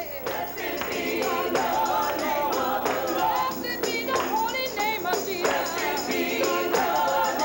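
Live gospel singing by a small group, a woman's voice leading, with a tambourine jingling along.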